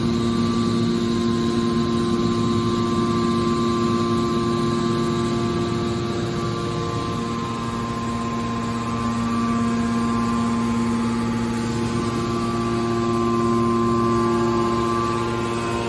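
Industrial machinery running with a steady electric hum made of several held tones over a noisy background; the tones shift slightly about seven seconds in.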